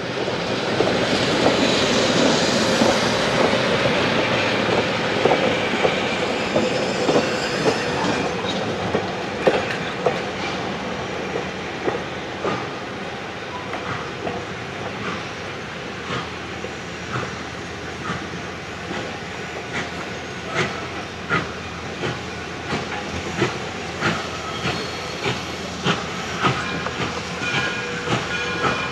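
Streamlined stainless-steel passenger train rolling along the track, loudest in the first several seconds. Its wheels then settle into a steady clickety-clack over the rail joints, about one and a half clicks a second.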